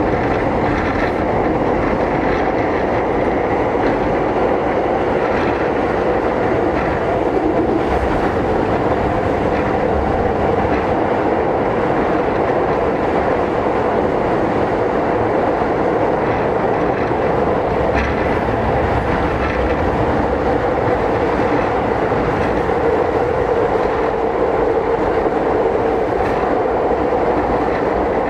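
Toei 10-300 series (4th batch) subway train running between stations, heard from inside the car: a steady rumble of wheels on rail with a few faint rail-joint clicks.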